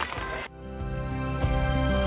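Soft background music with sustained, steady tones, coming in about half a second in after a brief bit of noisy sound.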